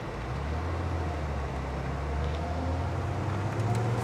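1992 Nissan Patrol Y60 under way, its engine and road noise heard from inside the cabin as a steady low drone that edges up in pitch near the end.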